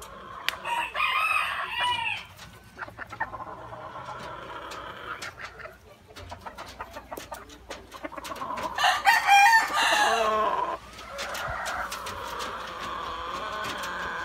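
Gamefowl roosters crowing: two loud crows, one about a second in and another around nine seconds in. Quieter calls from other chickens come in between.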